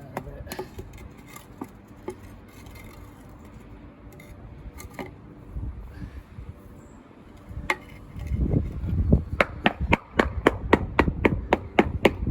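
Sand bedding under paving slabs being compacted by tamping: a few isolated knocks, then, from about eight seconds in, a quick run of sharp knocks at about four a second.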